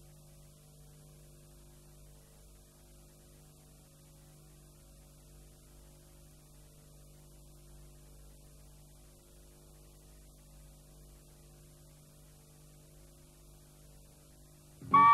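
Faint steady electrical hum with a light hiss. Music comes in suddenly right at the end.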